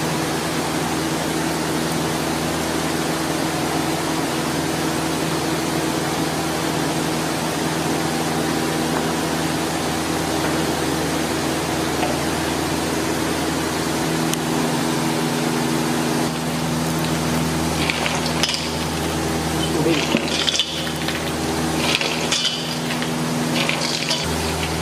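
Steady hum and hiss around a large pot of bread halwa cooking in milk, joined in the last several seconds by a run of sharp metal clinks and knocks of tins and utensils against the pot.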